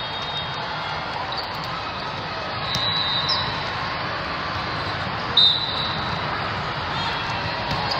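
Volleyball tournament hall ambience: a steady, echoing murmur of crowd voices from many courts, with referee whistles sounding, fainter around three seconds in and one short sharp blast about five and a half seconds in.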